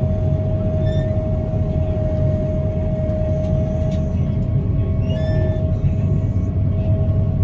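Combine harvester running, heard from inside the cab: a steady low rumble with a constant whine over it.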